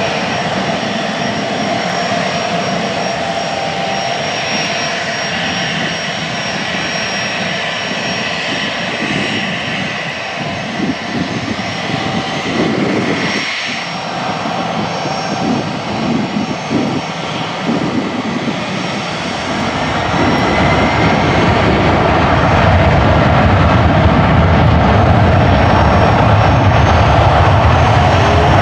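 Gulfstream G650 twin turbofan jet engines whining steadily as the jet taxis and turns onto the runway. About twenty seconds in, the engines spool up, growing louder and deeper, as the takeoff roll begins.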